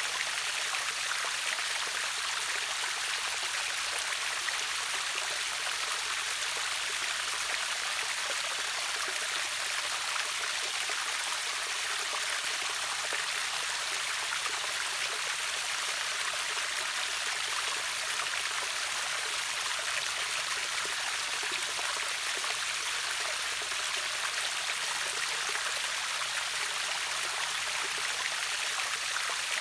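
Steady rush of water flowing over a river waterfall: an even, unbroken hiss that sits mostly high, with little deep rumble.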